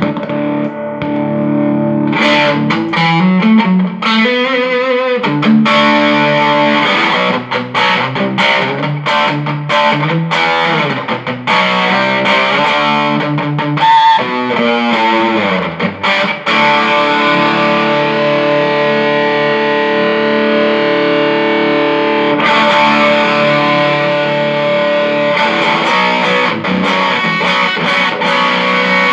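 Electric guitar played through a Mesa/Boogie Studio .22+ amplifier with distortion: held chords and notes with a few wavering string bends. The sound holds steady without cutting out, the amp just repaired for intermittent sound.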